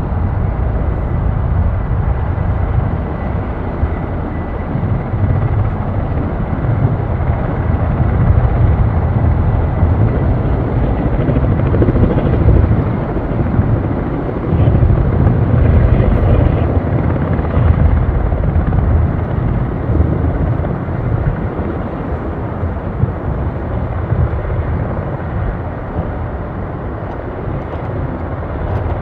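Surion firefighting helicopter's rotors beating, growing louder through the middle and easing off near the end.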